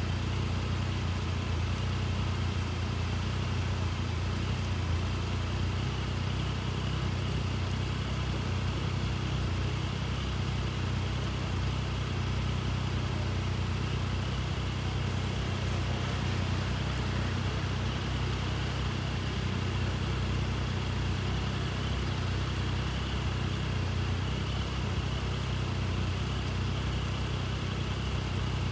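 Road vehicle engines idling steadily at a closed level crossing barrier, a low, even hum that does not change.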